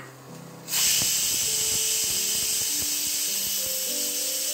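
Prestige pressure cooker whistling: a loud, steady hiss of steam rushing out past the weight valve, starting suddenly less than a second in. It is the whistle that marks the cooker has come up to pressure, counted as one of the one or two whistles the spinach is cooked for.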